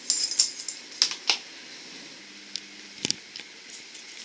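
Small metal items being handled: a brief jingle at the start, then several single light clicks spread through the rest.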